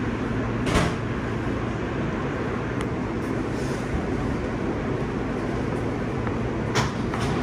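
New York City Subway L train car running, a steady rumble heard from inside the car, with two short sharp noises about a second in and near the end.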